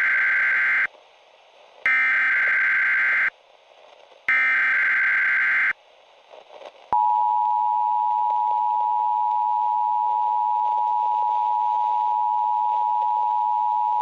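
Emergency Alert System header: three buzzing bursts of SAME digital data, the first already underway, each about a second and a half long with short gaps between them. About 7 s in, the steady two-tone EAS attention signal starts and holds.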